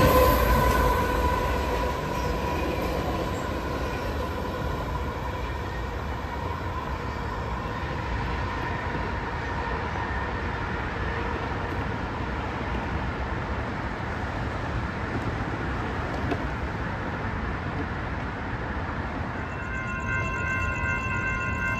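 BNSF office-car special train rolling past, its steady rumble and rattle going on as the lead locomotive's tones fade in the first couple of seconds. Near the end a grade-crossing warning bell starts ringing.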